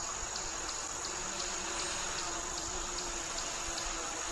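Steady high insect chirring with short regular ticks about two and a half a second, over a faint steady hum from a DJI Mavic Pro quadcopter hovering overhead on low-noise propellers.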